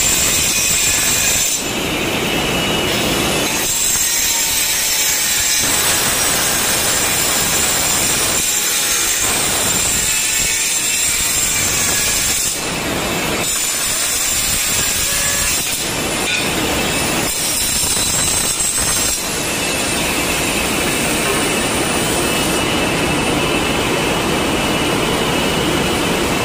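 Handheld electric tile cutter with a diamond blade running and cutting through ceramic tile, a loud steady whine over gritty cutting noise. The sound changes abruptly several times as cuts start and stop.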